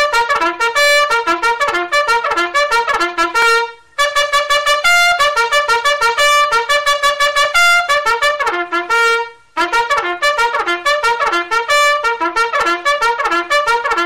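Trumpet playing a fast bugle-style wake-up alarm call in rapid short notes. Each phrase ends on a held note, with brief breaks about four and nine and a half seconds in.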